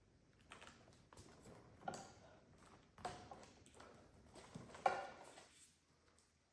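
Irregular light clicks and knocks from hands handling small parts and wires, several of them a fraction of a second to a second apart, with one sharper knock about two-thirds of the way through.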